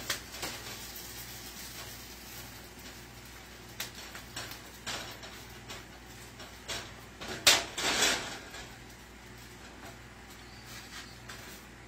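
Plastic spatula scraping and tapping against a skillet as a quesadilla is worked in the pan, with scattered short clicks and a louder pair of knocks and a scrape about seven and a half seconds in, over a low steady hum.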